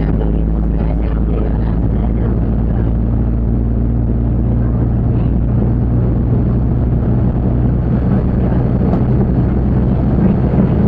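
Waggon und Maschinenbau diesel railbus under way, its underfloor engine running with a steady low drone over the rumble of the wheels on the track.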